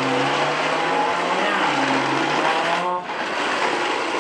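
RC toy truck's small electric motor and gears whining steadily, the pitch rising and falling as it speeds up and slows, cutting out briefly about three seconds in.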